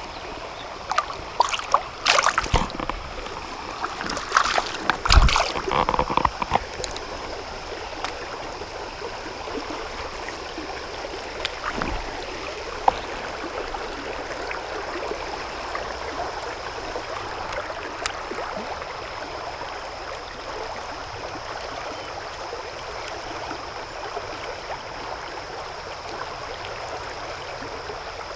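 Creek water running over riffles, a steady rushing flow. Several splashes and knocks come in the first six seconds, then only the water is heard, with a faint steady high whine over it.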